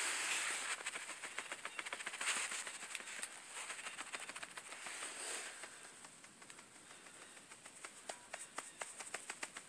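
Partridge pecking and scratching in dry leaves and seed litter around a boot: fast light taps with rustling at first, thinning to scattered single ticks in the second half.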